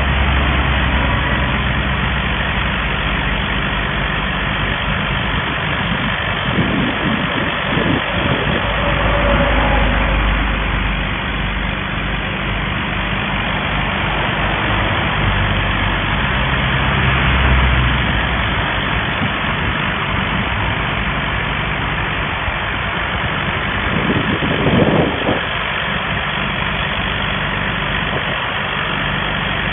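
Reverse circulation drilling rig running: a steady engine drone under a constant noisy rush, with brief louder swells about seven and twenty-five seconds in.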